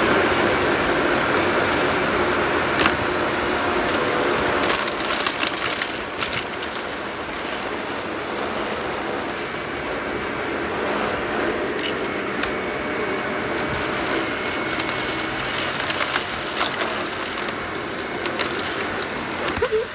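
Dyson upright vacuum cleaner running steadily over a carpet, with scattered sharp clicks and crackles of grit and debris being pulled in.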